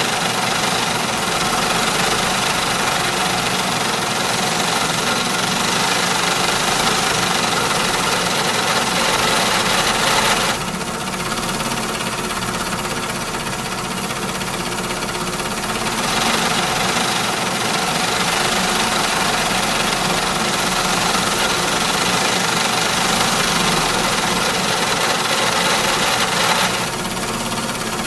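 Small-factory machinery running steadily, a dense mechanical clatter and hum. It eases off a little for several seconds after about ten seconds in and comes back up.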